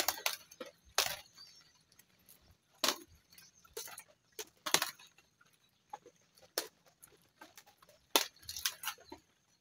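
Sukuma wiki (collard green) leaves being snapped off their stalks by hand: scattered short snaps and rustles at irregular intervals.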